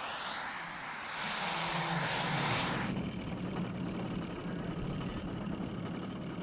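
Radio-control model aircraft flying past: a high rushing engine hiss fades and then cuts off abruptly about three seconds in, leaving a steady, lower engine drone.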